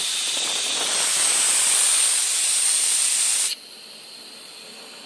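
Compressed air hissing through a pneumatic oil extractor on a drum while it draws liquid up through a hose. The hiss grows brighter about a second in, then cuts off suddenly about three and a half seconds in, leaving a fainter steady hiss.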